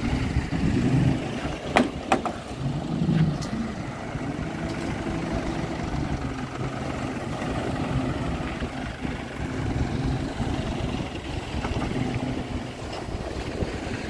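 Street ambience dominated by a motor engine running steadily and wavering in pitch, with two sharp clicks close together about two seconds in.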